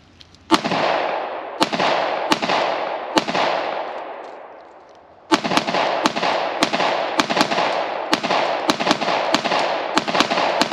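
Shots from an IWI Uzi Pro 9mm pistol fired semi-automatically, each crack trailing off in an echo: four well-spaced shots, a pause of about two seconds, then a quicker string of about a dozen shots.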